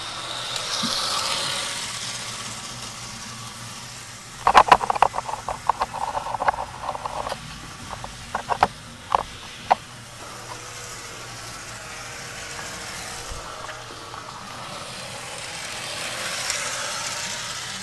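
Old model train running around the track, a steady whirring hiss that swells twice as it passes close. About four and a half seconds in comes a few seconds of rapid clicking and rattling from the wheels over the track.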